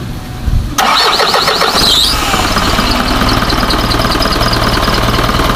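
Isuzu 4HJ1 four-cylinder common-rail diesel cranking on the starter, catching less than a second in and settling into a steady idle. It idles evenly, with the misfire cleared after its common-rail connectors were cleaned with contact cleaner.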